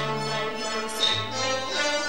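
Teochew opera instrumental accompaniment: traditional Chinese instruments, with bowed fiddles, playing a passage of sustained notes.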